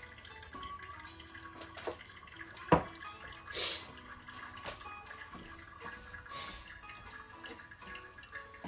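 A drinking glass set down on a wooden countertop with one sharp knock a little under three seconds in, over quiet background music. A few short hisses follow.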